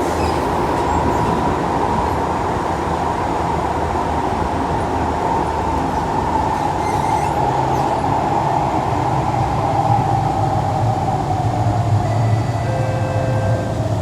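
Kawasaki C151 metro train running in a tunnel, heard from inside the car: a steady rumble with a whine that slowly falls in pitch over the second half as the train slows, and a few short faint squeals near the end.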